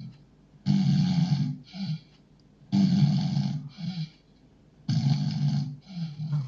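A sleeping man snoring loudly in a steady rhythm: three deep snores about two seconds apart, each followed by a shorter, fainter one.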